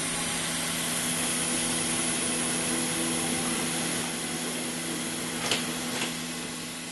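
The bolster-cutting machine running, a steady mechanical hum and rush that grows quieter in the second half, with two sharp metallic clicks near the end.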